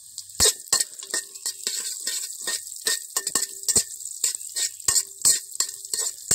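Steel spoon stirring soya chunks, cumin and whole spices frying in oil in a metal pot: repeated sharp clicks and scrapes of the spoon against the pot, some ringing briefly, over a steady sizzle of the oil.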